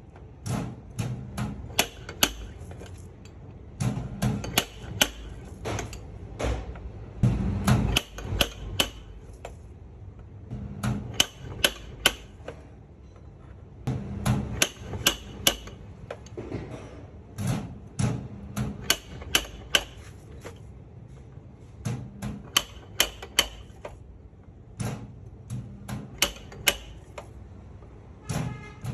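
Light, rapid hammer taps on a car's sheet-metal body panel, coming in runs of several strikes a second with short pauses between: a dent being tapped out in paintless dent repair.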